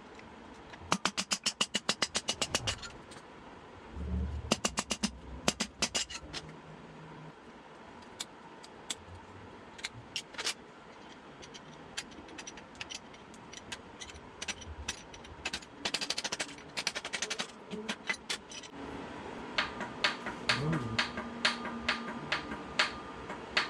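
Hand tools at work on a partly dismantled engine: a ratchet wrench clicking in a quick, even run about a second in, then scattered sharp metallic clicks and clinks of parts being handled, with more runs of quick clicks later on.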